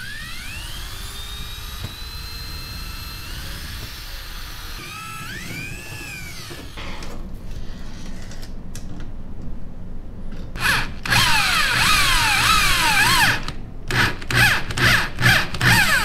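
Power drill driving stainless steel countersunk screws: the motor whine climbs in pitch and holds for several seconds, then swells and falls off again. After a short lull comes a louder run of quick stop-start bursts of the drill.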